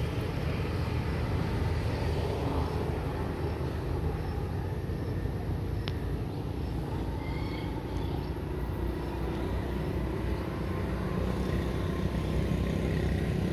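Steady rumble of road traffic passing on a nearby road bridge, with a low, continuous hum of engines and tyres.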